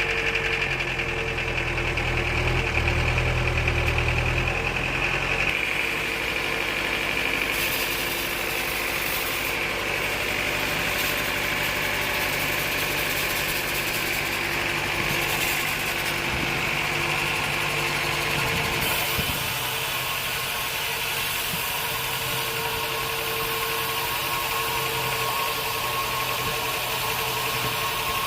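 Sawmill machinery running steadily, with a steady mid-pitched hum and a higher whine throughout. A heavy low rumble drops away about five seconds in.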